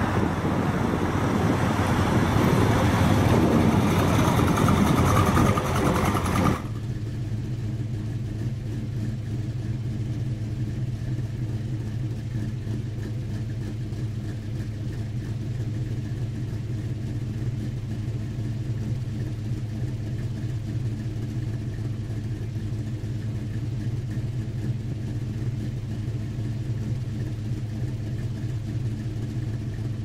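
A white Oldsmobile muscle car's V8 running loudly as it drives in, swelling and then cut off abruptly about six and a half seconds in. After that an engine idles with a steady low, even hum.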